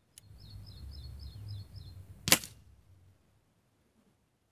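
Cometa Fusion spring-piston air rifle fired once: a single sharp crack a little over two seconds in, after a low rumble.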